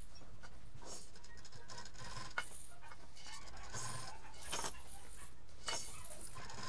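Plastic baby rattle and teether toys tied to a stuffed fabric pillow clinking and rattling in irregular light clicks as the pillow is handled, with a few sharper knocks.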